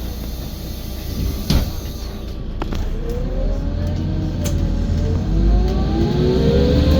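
IIA Menarinibus Citymood 12 CNG city bus accelerating after a kickdown: a whine from the heavily soundproofed engine and drivetrain climbs in pitch from about three seconds in, eases briefly, then rises again as the bus picks up speed. A sharp click comes about a second and a half in.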